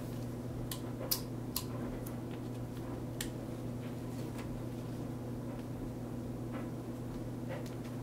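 Transfer paper and a hoodie being handled and smoothed on a heat press platen: scattered light clicks and paper rustles over a steady low hum.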